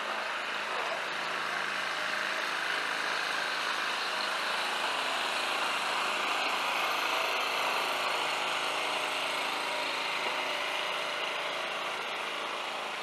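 A small boat engine running steadily, swelling a little in the middle and easing off near the end.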